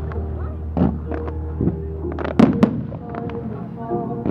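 Fireworks display: a run of sharp bangs from shells bursting overhead, bunched closest and loudest about two and a half seconds in, over a steady low hum.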